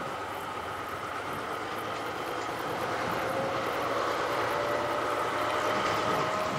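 Distant narrow-gauge diesel locomotive BDŽ 75006 running as it approaches with its train, growing slowly louder; a faint steady tone in its sound rises slightly in pitch.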